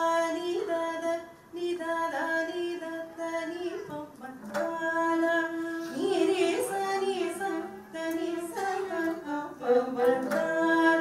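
A woman singing long held notes with sliding Carnatic-style ornaments between them, in a few phrases with short breaths between.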